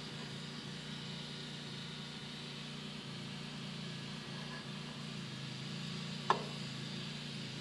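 Steady low hum of shop background, with a single sharp click about six seconds in as a connecting rod is worked onto its crankshaft journal in an engine rebuild.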